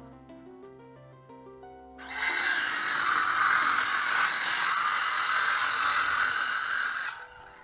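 Background music, with a loud power tool working on wood from about two seconds in: a harsh, steady rushing noise that lasts about five seconds and stops shortly before the end.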